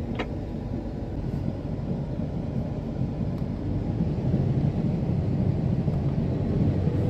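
Combine harvester running with a steady low drone, heard from inside its cab, growing a little louder about halfway through.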